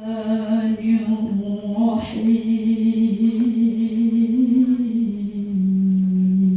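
A woman's solo voice chanting Qur'anic recitation in the melodic tilawah style, with long held notes that waver in ornament. The pitch steps down a little about five seconds in.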